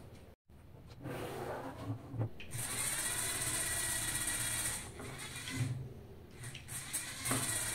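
Small electric motors and their plastic gear trains whining under load as they drive two chained toy cars against each other in a tug of war, an original LEGO motor against a knockoff. The whine drops for a moment about five seconds in and picks up again near seven seconds.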